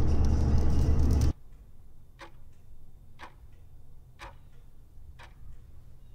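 Car cabin road noise that cuts off abruptly about a second in, followed by a clock ticking steadily, one tick a second.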